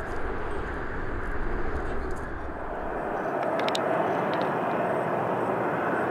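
Steady jet roar of a C-17 Globemaster III's four Pratt & Whitney F117 turbofan engines as the transport taxis after landing. About halfway through, the deep rumble drops away and a fuller mid-pitched roar takes over.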